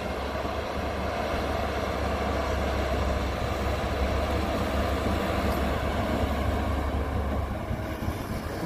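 Tracked Cat excavator's diesel engine running steadily as it digs soil and raises a full bucket: a low, even drone with no breaks.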